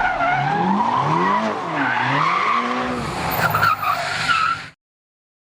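A car engine revving up and down with tyre squeal, cutting off suddenly near the end.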